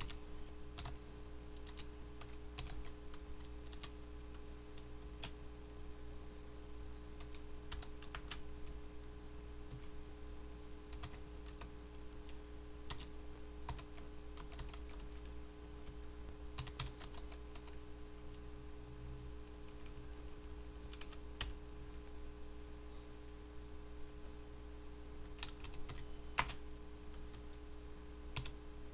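Typing on a computer keyboard: irregular keystroke clicks with short pauses between bursts, over a steady low electrical hum.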